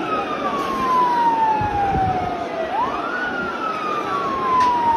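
A vehicle siren wailing. Its pitch slides slowly down for about three seconds, jumps quickly back up about halfway through, then slides down again, over the steady din of a large crowd.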